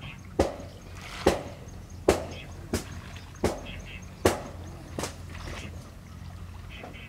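Seven sharp knocking strikes, a little under a second apart, that stop about five seconds in.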